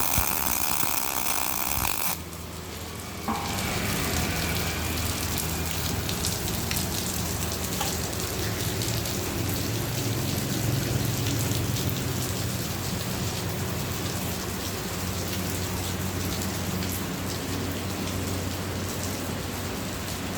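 MIG welder arc crackling steadily, a rain-like sizzle over the welding machine's low hum, starting about three seconds in after a short lull; before that the 350 A MIG welder's machine sound is heard.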